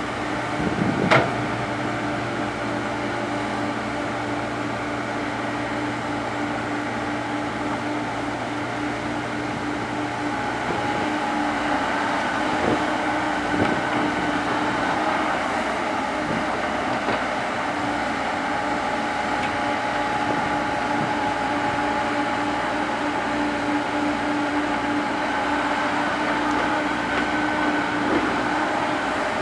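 Komatsu PC70 hydraulic excavator's diesel engine running steadily, with one sharp clank about a second in.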